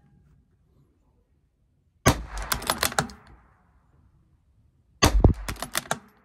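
Two shots from a CZ 457 .22 rimfire bolt-action rifle, about three seconds apart, each followed by a quick run of clicks as the bolt is worked to eject and chamber the next round.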